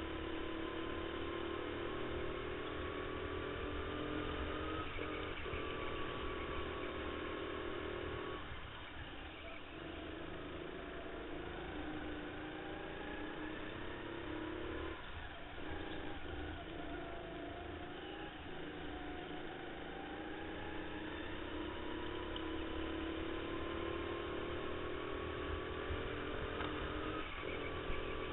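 Onboard sound of a racing go-kart's motor running at speed, its pitch rising and falling with the kart's speed, with brief drops about 8 and 15 seconds in.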